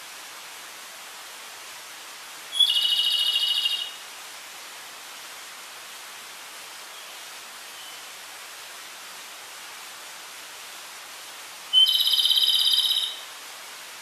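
Flycatcher (tledekan) calling twice, about nine seconds apart: each phrase is a short high note going straight into a fast buzzy trill lasting about a second and a half. A steady hiss runs underneath.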